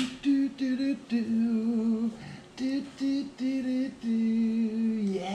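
A lone voice singing a short unaccompanied tune without clear words: a string of short held notes, the last one longer.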